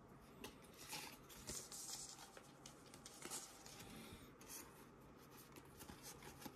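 Faint rustling and soft scraping of a Pokémon trading card being picked up off a table and slid into a card sleeve, with a few small ticks.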